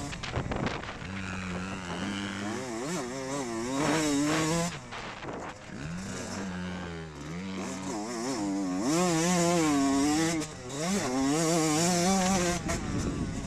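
Motocross dirt bike engine being ridden hard, its pitch rising and falling over and over with throttle and gear changes, with wind noise over the onboard camera.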